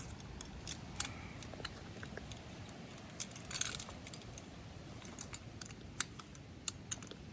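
Light clicks and clinks of camp cooking gear being handled and fitted together, irregular and scattered, with a short rustle about three and a half seconds in, over a steady low rumble.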